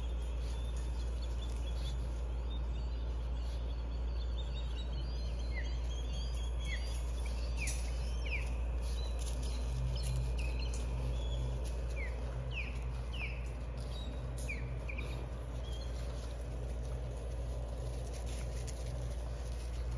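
A bird chirping in short, high, quick calls, repeated on and off through the middle of the stretch, over a steady low background rumble.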